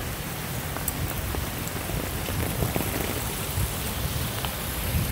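Steady hiss of heavy rain and rushing floodwater, with irregular low buffeting on the microphone.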